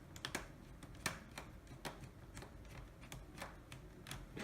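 Faint, irregular small clicks and ticks of a small screw being driven into a laptop's plastic screen housing, with light handling of the parts.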